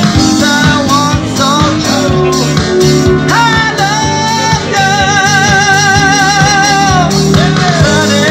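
Live rock band playing: electric guitars, bass and drums, with a held, wavering note in the middle.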